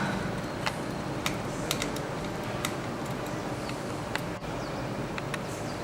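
Scattered small, sharp clicks and taps, about ten of them at irregular intervals, over a steady low hum.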